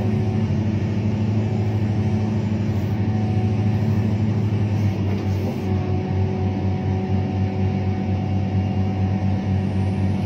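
Komatsu PC1250 hydraulic excavator's diesel engine running steadily with a deep drone, heard from inside the operator's cab while the machine digs and swings.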